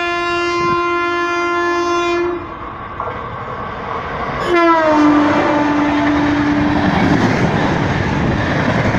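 Horn of a red Indian Railways electric locomotive, held for about two seconds and then sounded again, its pitch dropping as the locomotive passes. After that come the loud rush and clatter of the passenger coaches going by at speed.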